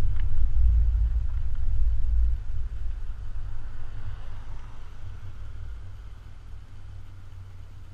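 Low rumble of a vehicle driving slowly, picked up by a camera mounted on its hood. It is loudest for the first two seconds or so, then fades as the vehicle comes to a stop.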